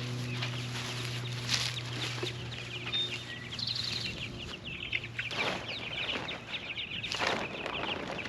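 A flock of young meat chickens cheeping: many short, high calls overlapping. A steady low hum fades out about halfway, and two brief bursts of noise come near the end.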